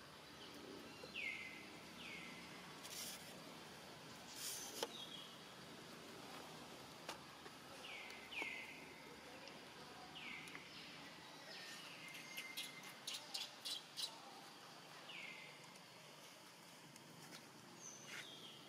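Faint, short high-pitched chirping calls, each dropping quickly in pitch, coming in small bouts, with a quick run of sharp clicks about two-thirds of the way through.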